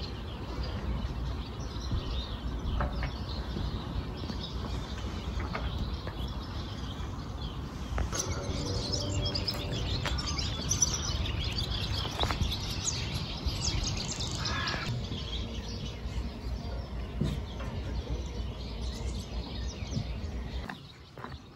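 Birds singing and calling, many short high chirps with a few lower calls, over a steady low rumble that drops away near the end.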